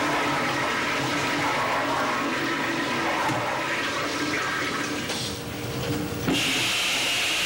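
Steady rushing noise like running water, which switches abruptly to an even hiss about six seconds in.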